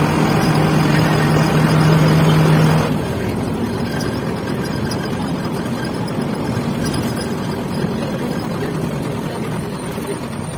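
City bus engine running and road noise heard from inside the driver's cab while driving. A steady low hum for about the first three seconds then drops away, leaving a more even running noise.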